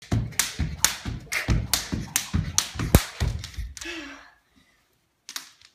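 A jump rope slapping a hardwood floor, with the thud of feet landing, in a quick rhythm of about two to three strikes a second. The strikes stop a little under four seconds in.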